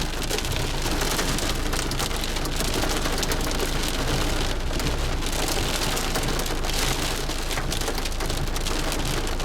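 Small hailstones, about half a centimetre across, falling with heavy rain: a dense, steady patter of countless small hits.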